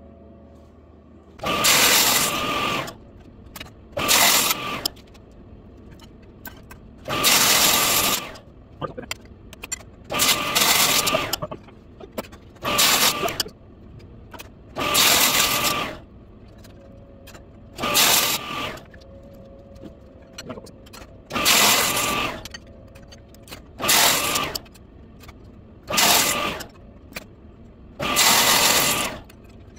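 A 10-inch, 40-tooth table saw blade cuts aluminum bar stock, one slice after another, without coolant. There are about eleven harsh, screeching cuts, one every two to three seconds.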